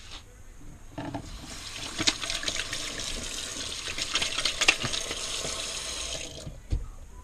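Kitchen tap running into a stainless steel sink while hands are rinsed and rubbed under the stream. The water starts about a second in and is turned off near the end, followed by a low knock.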